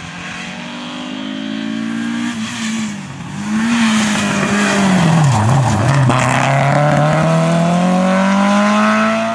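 Rally car engine at high revs: the revs climb, drop at a gear change, sink low around the middle, then rise steadily as the car accelerates hard. It gets much louder about three and a half seconds in and cuts off suddenly at the end.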